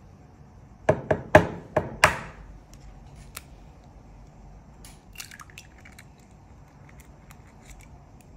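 An egg tapped against the rim of a glass bowl with five sharp knocks, followed a few seconds later by a short crackle as the shell is pulled open and the egg drops into the liquid.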